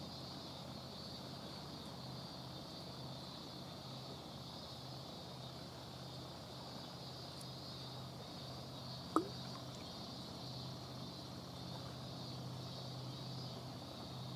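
Steady outdoor background: a low, even hum with a constant high-pitched insect-like buzz over it. A single brief, sharp rising chirp sounds about nine seconds in.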